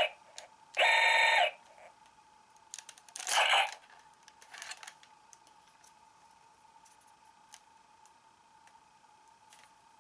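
Electronic sound effects from a Kamen Rider Ryuki Drag Visor toy gauntlet: a loud steady electronic tone lasting under a second, about a second in, and another burst of sound at about three seconds. After that a faint steady tone hangs on, with a few light plastic clicks.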